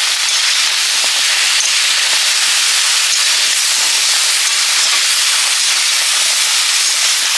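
Bottle gourd, amaranth stems and shrimp frying in a wok with a steady, loud sizzle, turned by a metal spatula.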